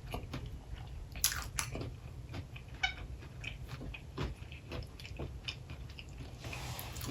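Close-miked chewing of a crunchy, Takis-coated fried boudin ball, with irregular crunches, the loudest a little over a second in and around three and four seconds in, over a faint steady low hum.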